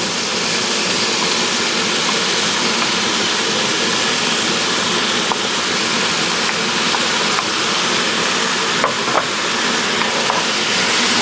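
Ham and freshly added pineapple sizzling steadily in hot oil on a cooking surface as their moisture cooks off, with a few light clicks.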